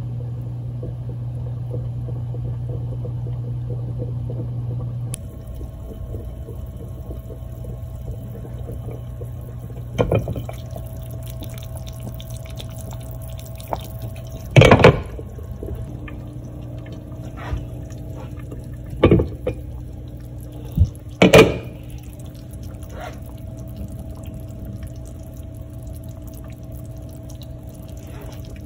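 A pot of chicken broth simmering on an electric stove, a steady low hum and liquid sound, broken by a few sharp metal clanks of cookware, the loudest about halfway through.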